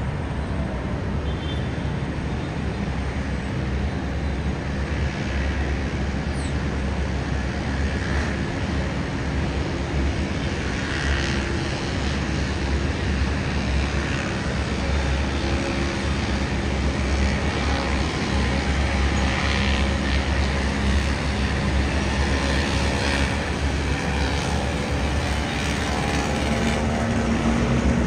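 Steady din of heavy city traffic heard from high above a busy avenue, with an elevated MRT train running along the viaduct, the sound swelling a little toward the end.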